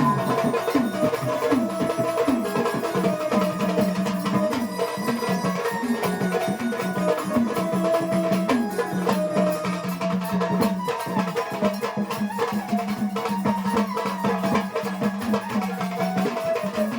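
Marathi devotional folk song: a voice singing over hand-drum percussion and a held low tone.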